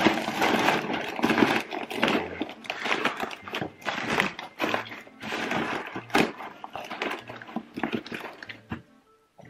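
Crumpled newspaper rustling and crackling as it is stuffed by hand into a cardboard box as packing padding; it stops shortly before the end.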